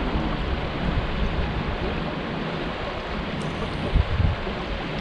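Wind buffeting the microphone over a steady rushing noise, with a harder gust about four seconds in.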